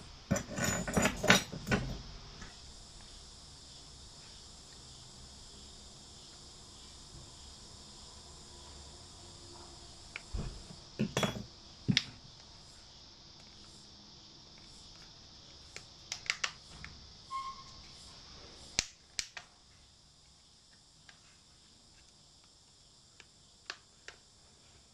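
Small plastic clicks and knocks from fingers handling and working at the edges of a ZTE MF910 pocket Wi-Fi modem's plastic casing. They come in scattered clusters, loudest about a second in, with a steady faint hiss underneath.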